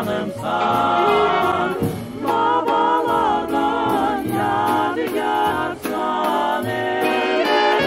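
Background music: voices singing over a steady beat.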